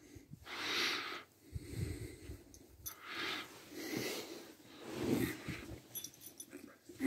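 Small dog's wheezy, snorting breaths, repeating roughly once a second, as he snuffles close to the floor.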